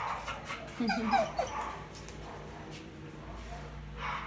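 Dog whining: a few short cries that rise and fall in pitch about a second in, then quiet apart from a steady low room hum.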